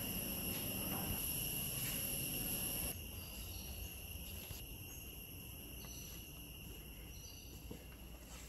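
Faint room tone with a steady high-pitched ringing tone running through it; the background drops a little about three seconds in.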